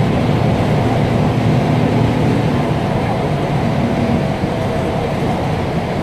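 Mercedes-Benz OM 926 LA inline-six diesel of a city bus running steadily under way, heard from inside the bus cabin. It eases slightly about four seconds in.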